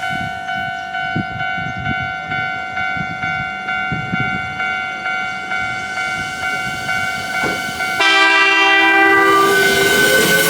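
Japanese level-crossing warning bell ringing quickly, about three strokes a second. About eight seconds in, an electric train sounds its horn, a loud steady chord, and the noise of the arriving train comes up, with a rising whine near the end.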